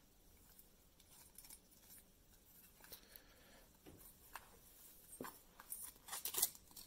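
Faint handling noises from a small plastic LED puck light and its thin cord being turned over and pulled apart in the hands: scattered light clicks and rustles, with a short run of sharper clicks near the end.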